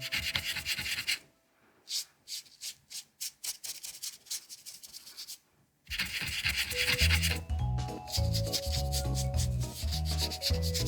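Paintbrush strokes rubbing paint onto a small plastic toy figurine: short scratchy strokes, several of them separate in a quiet stretch in the middle. Background music comes in about six seconds in.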